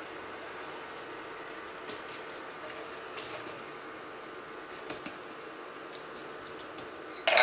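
Faint scattered taps and rustles of a metal pepper shaker being shaken over a fish on a plastic cutting board, above a steady low hum, with a louder clatter near the end.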